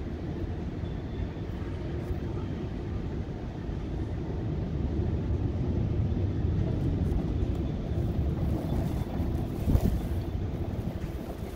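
Steady low rumble of road and engine noise from a car driving along city streets, with a single thump about ten seconds in.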